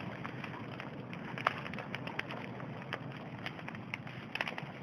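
Bonfire crackling: scattered sharp pops and snaps over a steady rushing noise, one pop louder about a second and a half in.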